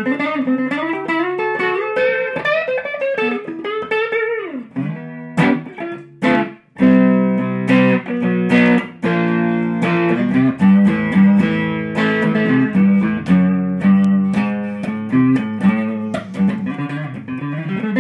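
Fender Sixty Six electric guitar played through an amp with a little crunch from an MXR Super Badass distortion pedal: a run of single notes climbing in pitch, then repeatedly strummed chords that ring on.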